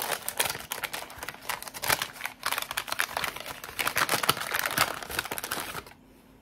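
Brown kraft-paper packet crinkling and crackling as it is handled and torn open, a dense run of small paper crackles that stops near the end.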